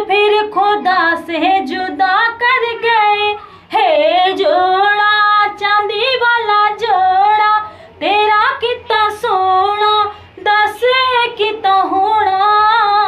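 A woman singing close to the microphone, in phrases of long held notes that slide up and down in pitch, with short breaks for breath between phrases.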